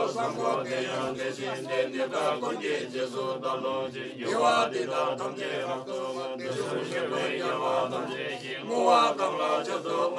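Buddhist monks chanting prayers together: men's voices in a steady, continuous recitation.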